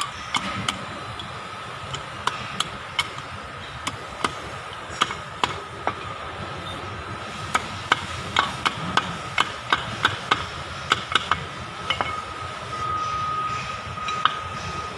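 Irregular sharp metal-on-metal clinks and knocks as steel parts of a Kubota tractor's front-axle final-drive housing are handled: a short steel pipe sleeve is set against the cast housing where the oil seal sits. A thin steady high whine runs underneath and grows stronger near the end.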